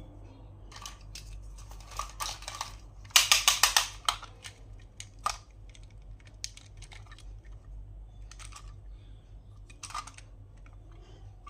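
Hands opening and handling toy packaging: scattered crisp plastic clicks and crinkles, with a quick run of about half a dozen loud sharp strokes about three seconds in.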